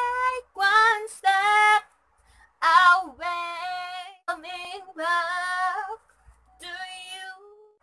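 A woman singing a cappella in short phrases with long-held notes, pausing briefly about two seconds in.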